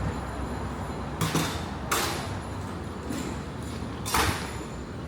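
City street ambience: a steady low traffic rumble, broken by three short, sharp scraping or clattering noises about one, two and four seconds in.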